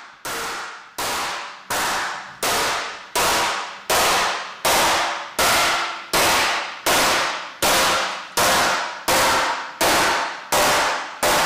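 A sharp clanging strike repeated at an even pace, about once every three-quarters of a second, each one ringing briefly and fading before the next. The strikes grow louder over the first few seconds, then stay level.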